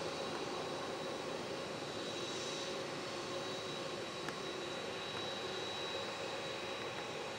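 Boeing 767-300 freighter's jet engines running at taxi power: a steady rushing hum with a thin high whine on top.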